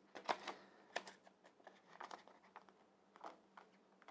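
Faint crinkling and rustling of a large adhesive sticker and its peeled backing paper being handled and lined up, with a few light clicks scattered through.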